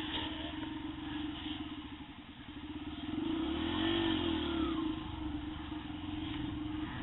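Yamaha TT-R125 dirt bike's single-cylinder four-stroke engine running under the rider. It eases off about two seconds in, then revs up again around four seconds before settling back to steady running.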